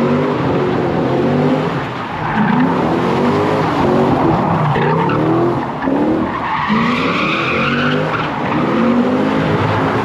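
A car sliding under power with its tyres spinning and squealing. The engine's revs swing up and down over and over.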